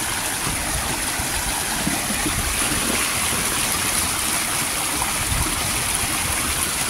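Small moorland stream running over rocks in a shallow cascade: a steady rush of water.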